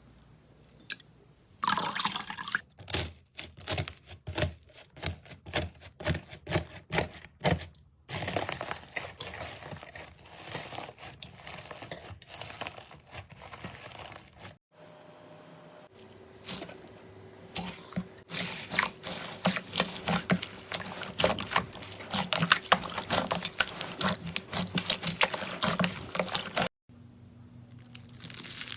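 Slime being worked by hand: wet squelches and pops as it is poked and pressed, about two a second at first, then a denser crackle. Near the middle it switches to a thick run of fine clicks and crackles, typical of crunchy slime being squeezed, which cuts off suddenly near the end.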